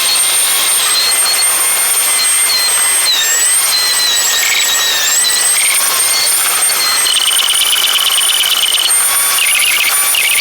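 In-car driving audio played back greatly sped up: a steady high whine over hiss, wavering in pitch, with rapid chirping ticks in the second half.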